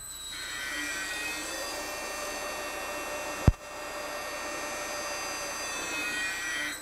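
NEPATA UA770 rewinding machine prototype spinning up and winding vinyl film off a large roll: its motor whine rises, runs steady, then drops quickly near the end as the new brake on the lower mandrel stops the roll. A single sharp click about halfway through.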